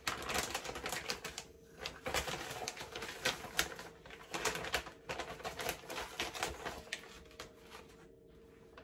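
Crinkling and rustling of a plastic pouch of granulated sweetener as it is pulled open and handled, in quick irregular crackles that die down near the end. A faint steady tone sounds underneath.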